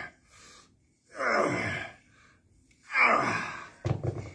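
A man's strained groaning exhales during seated dumbbell curls: two long groans, each falling in pitch, about a second and a half apart. Near the end comes a short knock as the dumbbell is put down.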